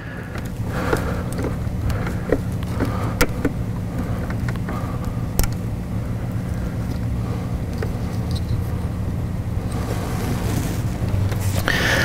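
A steady low mechanical hum, like a motor or engine running, with a few light clicks over it.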